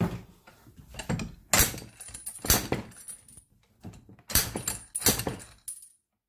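Irregular metallic clanks, rattles and scrapes as a rusty classic Mini rear suspension trumpet clamped in a steel bench vise is twisted and worked by hand to free its knuckle joint.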